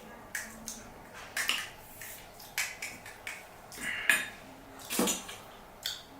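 Dishes and utensils clinking and tapping, about a dozen irregular sharp knocks, some with a short ring.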